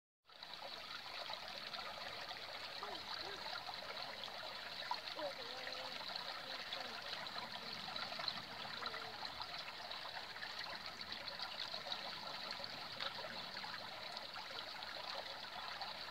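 Shallow forest stream trickling and babbling over stones, a steady flow of water. It cuts in abruptly from silence just after the start.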